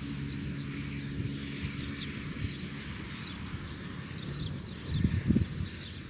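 Birds chirping in a dawn chorus: many short, quick falling chirps repeating throughout, with a faint low hum in the first half and a few low thumps a little after five seconds.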